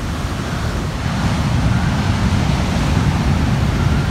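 Wind buffeting the microphone: a steady low rumble with no clear events.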